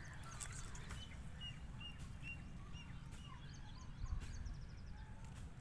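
Small birds calling in the open: a string of short, high, evenly spaced chirps, then a quick high trill near the middle. Underneath is a steady low rumble with a few soft knocks.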